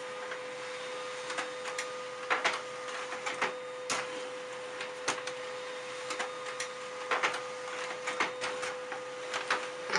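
Desktop laser printer running as it prints, a steady whine with irregular clicks and clacks.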